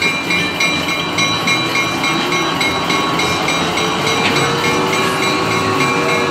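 Diesel switcher locomotive moving slowly with its bell ringing steadily, about four strokes a second, over the low rumble of the engine and rolling train.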